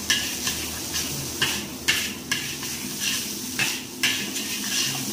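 Fried rice sizzling in a wok while a metal spatula scrapes and knocks against the pan to toss it, with a sharp scrape every half second or so.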